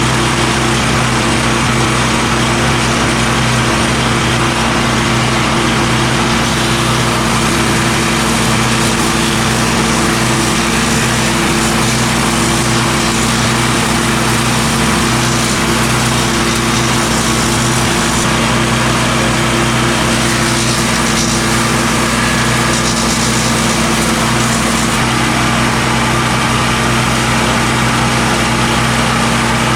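KNDMAX HGC155 disc wood chipper running steadily, its engine at a constant speed under a dense, even din.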